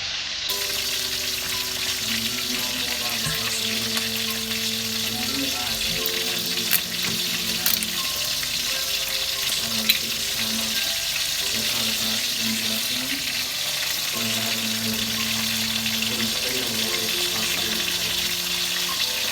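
Food sizzling steadily in a hot pan, with a few sharp clicks from a utensil against the pan.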